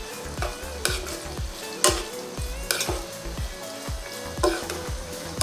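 Sliced onions and green chillies sizzling in hot oil in a karahi, being softened. A spatula stirs them, scraping against the pan about five times, loudest a little under two seconds in.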